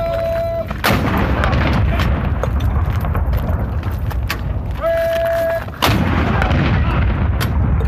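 Two cannon shots from a 21-gun salute fired by towed ceremonial artillery pieces, about five seconds apart. Just before each shot a short steady tone sounds.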